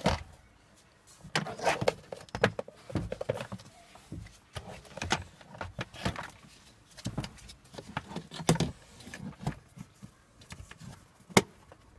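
Hand-work clicks, knocks and rattles at the cabin air filter cassette behind the glovebox of a 1999 Honda CR-V, as the retaining clip is fitted, with one sharp click near the end as it snaps shut.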